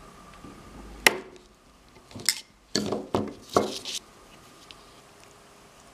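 Small hand tools clicking and knocking on a tabletop while thin lamp-cable wire is being stripped: one sharp click about a second in, then a quick run of knocks and scrapes between two and four seconds in.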